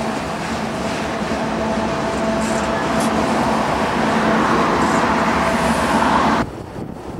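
Canadian Pacific diesel locomotive running with a steady drone, mixed with road traffic as a car passes close and grows louder; the sound cuts off suddenly about six and a half seconds in.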